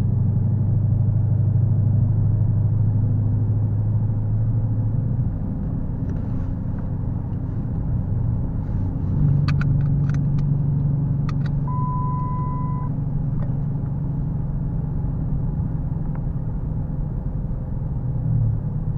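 2014 Dodge Challenger R/T's 5.7-litre HEMI V8 droning inside the cabin while driving, its pitch shifting about five seconds in and again about nine seconds in. A few sharp clicks and a brief single tone come near the middle.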